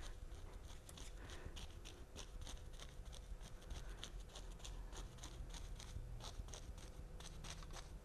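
Oil-loaded bristle brush tapped again and again against stretched canvas, laying on fern foliage: a steady run of faint, dry scratchy taps, about three or four a second.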